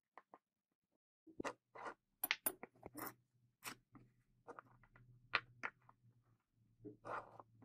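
Wooden handle blocks handled and slid onto the steel tang of a butcher's chopper: an irregular scatter of light clicks, knocks and scrapes of wood against metal. A faint low hum runs underneath from about a second and a half in.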